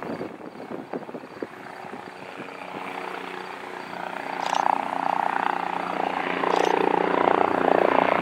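Bell 407 helicopter approaching, the sound of its single turbine engine and four-blade rotor growing steadily louder, rising clearly from about four seconds in.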